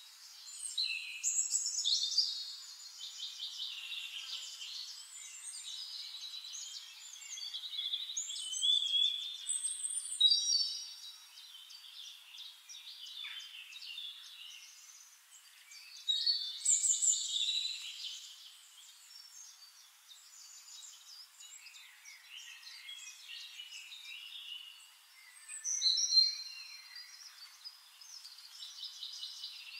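Birds chirping and singing, many quick high sliding notes that come and go in spells, loudest in a few short bursts.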